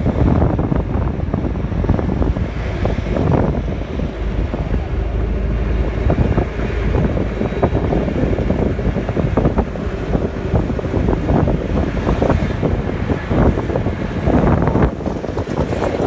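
Wind buffeting the microphone with the rumble of a moving vehicle on the road, a loud steady rush that flutters irregularly.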